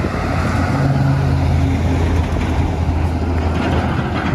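A motor running steadily with a low hum over a steady hiss; the upper part of the hum fades out about halfway through.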